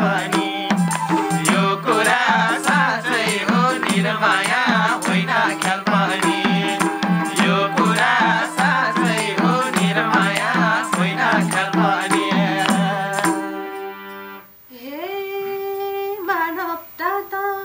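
Nepali lok dohori ensemble playing: harmonium drone, madal drum, tambourine and hand clapping under singing voices, stopping about thirteen seconds in. After a short break, a woman's voice sings a slow line of long held notes that glide between pitches, with little or no accompaniment.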